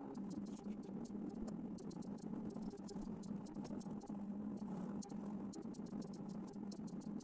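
A V-plotter at work: a steady low hum with dense, irregular ticking and pattering.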